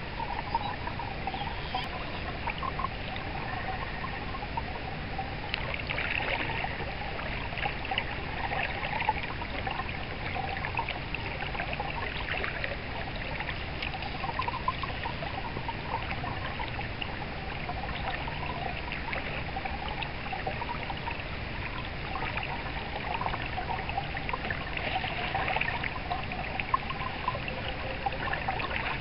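Trout stream water running and trickling in a steady ripple, with small splashes here and there.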